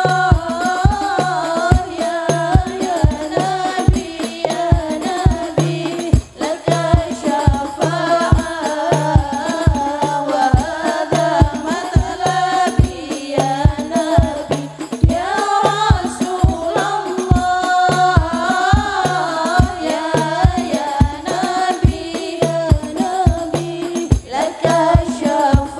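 Women's voices singing a sholawat melody together through microphones, accompanied by a hadroh ensemble of frame drums beating a steady, driving rhythm.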